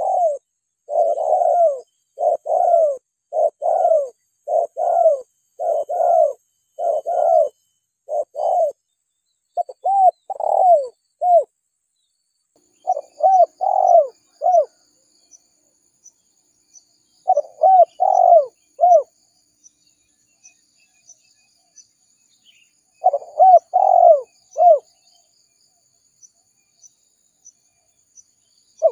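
Spotted dove (tekukur) cooing, played as a hunter's lure call. A close run of short coos lasts about ten seconds, then phrases of three or four coos come every few seconds with pauses between. Faint high-pitched chirping runs in the background.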